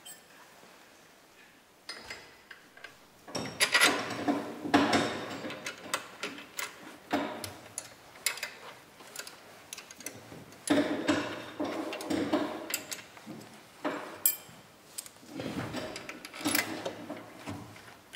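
Hand tools working the bolts of a motorcycle's rear wheel hub: metallic clicking and clinking that comes in three louder spells, with lighter ticking between them.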